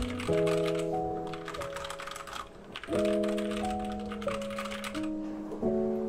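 Typing on a Royal Kludge RK71 mechanical keyboard with brown switches: a quick patter of keystrokes that breaks off briefly about halfway and thins out in the last second. Background music with slow, sustained chords plays underneath.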